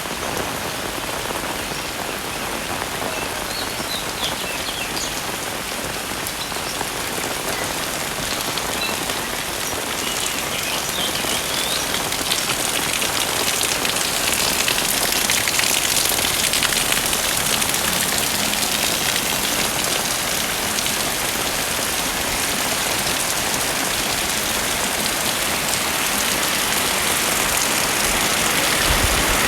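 Heavy rain falling and pattering on surfaces, a steady dense hiss that grows a little louder in the second half.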